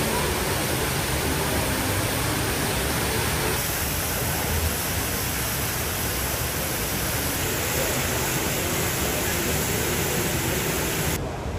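Jewel Changi Airport's Rain Vortex, an indoor waterfall falling from a glass dome into a pool: a steady rush of falling water. It drops quieter just before the end.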